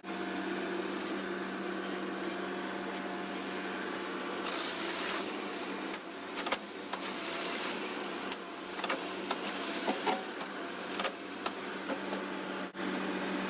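Biomass harvesting machinery running with a steady hum. Two bursts of hiss come about 4.5 and 7 seconds in, and short clicks and knocks are scattered through.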